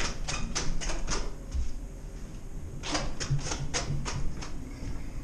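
Quick footsteps on a hard stairway and floor, two runs of sharp steps at about four a second, one near the start and one a little after the middle, over a low steady hum.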